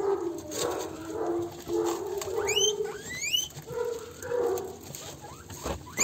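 Guinea pigs calling at feeding time: a run of sharp rising whistled squeals (wheeks) about two and a half seconds in and again near the end, over lower steady calls, the begging cry they give when food is coming. Dry feed pattering into a plastic bowl as it is poured.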